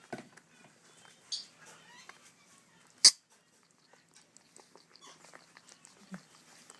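African grey parrot chicks making short squeaks and calls while being hand-fed, with a high squeak about a second in and one short, sharp, loud sound about three seconds in, followed by scattered faint ticks.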